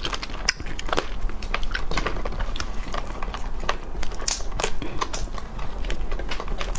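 Small raw-marinated crab's legs and claws being snapped off by hand, close to the microphone: many small, sharp, irregular cracks and clicks of breaking shell.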